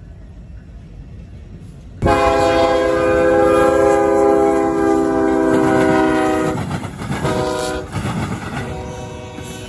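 Locomotive air horn sounding a chord, starting suddenly about two seconds in: one long blast of about four and a half seconds, then two shorter blasts. Under it runs the rumble and wheel clatter of a train on the rails.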